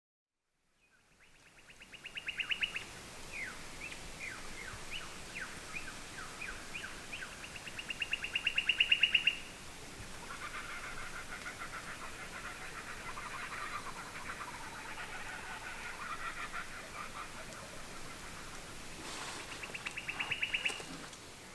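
Laughing kookaburra calling: fast runs of repeated notes that build up loud and stop, about two seconds in, around nine seconds and again near the end, with chattering calls in between.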